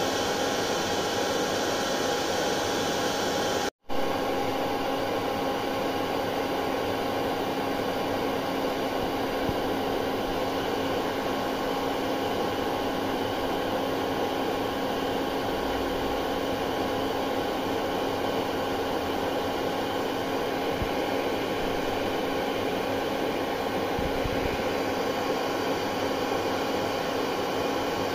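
Hair dryer running steadily: an even blowing hiss with a steady hum and whine in it. The sound cuts out for a split second about four seconds in.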